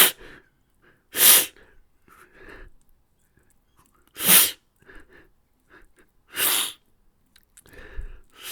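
A person crying: about five sharp, loud sniffs or sobbing breaths a second or two apart, with softer breathing between.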